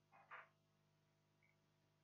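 Near silence: room tone with a faint steady hum and one faint short sound about a third of a second in.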